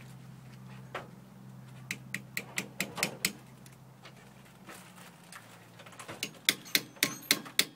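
Rapid light metallic taps, about four a second, in two runs, the later taps ringing briefly: a hand tool tapping or clicking on metal Jeep hub parts during installation. A low steady hum fades out about halfway.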